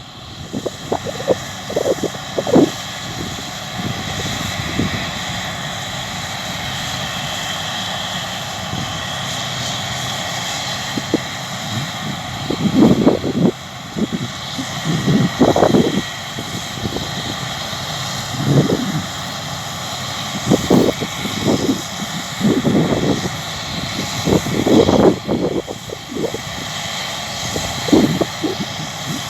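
Massey Ferguson Cerea 7278 combine harvester running steadily while harvesting: a constant drone with a high whine above it. Repeated gusts of wind buffet the microphone.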